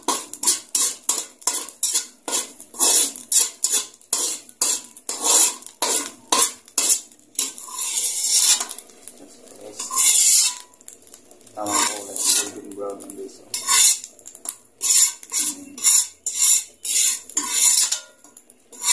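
Metal spoon scraping and stirring dry-toasted crumbs in a dry aluminium wok: quick repeated scrapes against the pan, about two or three a second, with a few longer scrapes as the crumbs are scooped out onto a plate.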